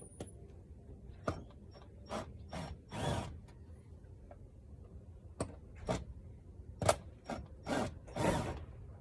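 Milwaukee M12 right-angle impact driver backing out air box screws in short bursts, mixed with sharp clicks and knocks of the tool against the screws and plastic box.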